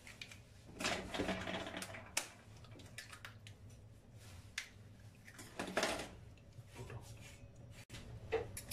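Eggs cracked open with a knife: scattered light taps of the blade on the shells, with two louder crunches of shell breaking, about a second in and again near six seconds.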